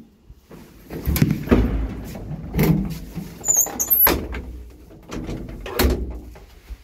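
Manual doors of a 1980 IFMA traction elevator being shut by hand: the metal landing door and the two-leaf wooden car doors give a series of separate knocks and clunks. There are brief high squeaks about halfway through.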